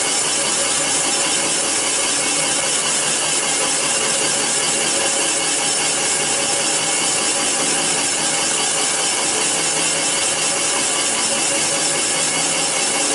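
Comec CNC cylinder boring machine cutting a cylinder bore in an iron engine block: a steady, even grinding hiss from the boring tool's cutting insert working the iron.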